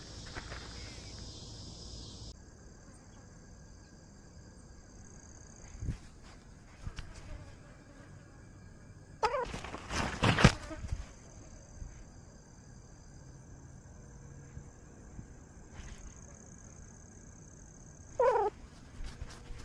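Insects chirping steadily in high tones, with two short cat meows, one about nine seconds in and one near the end. Around ten seconds in comes a loud burst of rustling and knocks.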